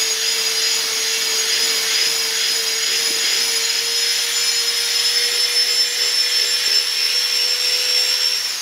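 Cordless handheld vacuum cleaner running steadily with a high motor whine, its nozzle drawn over a dog's coat to suck out shed undercoat.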